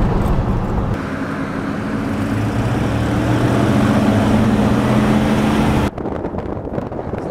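Car engine and road noise while driving, a steady low hum. About six seconds in it cuts off suddenly, giving way to a quieter rushing noise.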